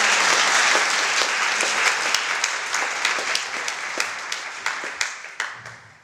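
Audience clapping in applause, thinning out and dying away near the end.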